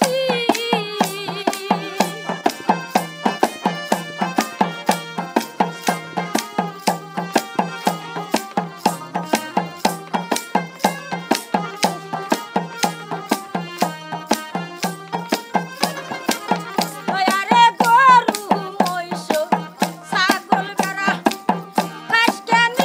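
Baul folk music: harmonium chords over an even hand-drum and tambourine beat, about three strokes a second. A woman's singing is heard at the start, and again from about two-thirds of the way through.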